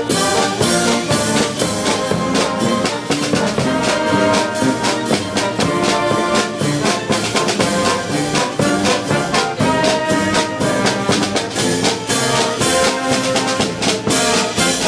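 Brass street band playing an instrumental tune: tuba, saxophone, trumpets and trombones over a bass drum and clash cymbals keeping a steady beat.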